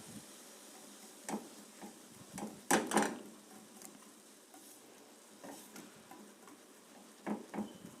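Whisk clicking and knocking against a saucepan of simmering sugar syrup: scattered light taps, the loudest cluster about three seconds in, over a faint steady hiss.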